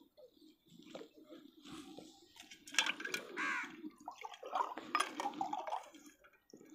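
Lassi ladled from a steel pail and poured into a glass: liquid pouring, with several sharp clinks of the metal ladle against the pail.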